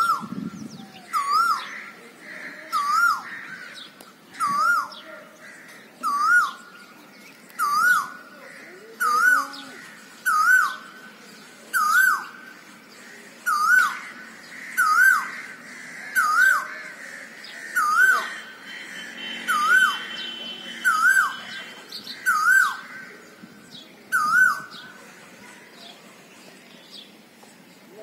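Male Asian koel calling: a short two-part 'ko-el' note repeated evenly about every one and a half seconds, some sixteen times, then falling silent near the end.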